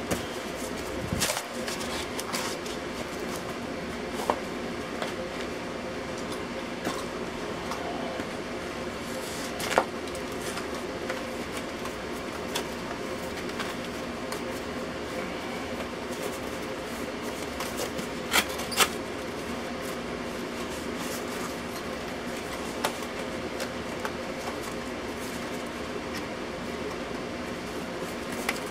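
A steady machine hum, with a handful of sharp clicks and taps from gloved hands handling a piece of cardboard, two of them close together a little past the middle.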